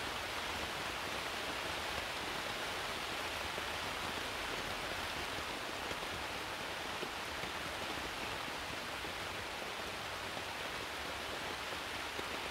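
Steady heavy rain falling on a tarp, an even hiss with no let-up.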